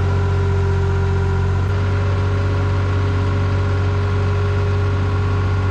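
An engine running steadily at constant speed: an even, unchanging hum.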